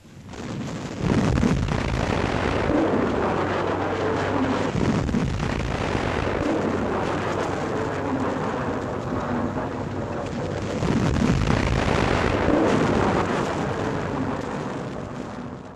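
Heavy artillery fire: a loud, continuous rumbling roar that starts suddenly about a second in, swells again a little past the middle, and fades near the end.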